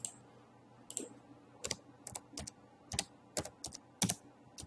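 Typing on a computer keyboard: a dozen or so separate key clicks at an uneven pace.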